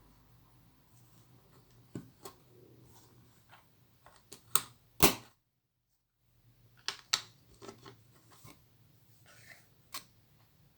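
Plastic Lego bricks being handled and pressed together: a string of sharp, irregular clicks and taps, the loudest about halfway through, with a second of dead silence just after it.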